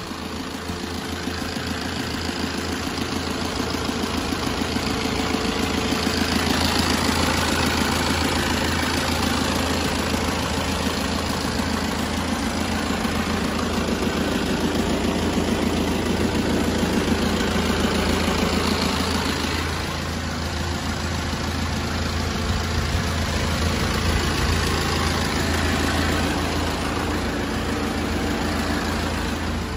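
Mitsubishi Canter truck's diesel engine idling with a steady low hum. It grows louder over the first few seconds and eases slightly about twenty seconds in.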